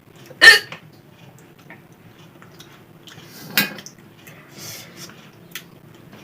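Two sharp hiccups about three seconds apart, the first the louder, with a few faint clicks between them.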